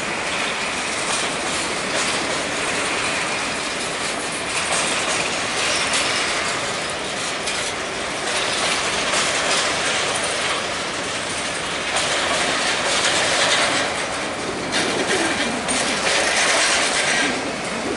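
Empty grain hopper cars of a freight train rolling past at trackside: a steady rumble and rattle of steel wheels and car bodies, with the wheels clicking over rail joints.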